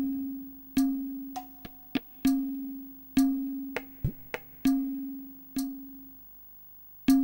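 Background music: a deep plucked note repeated roughly once a second, each dying away, with sharp percussive clicks in between. It fades briefly near the end before starting again.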